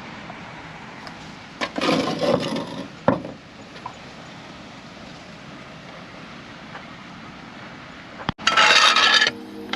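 Scraping and rubbing noises with a sharp knock, then after a short pause a loud burst of noise lasting about a second.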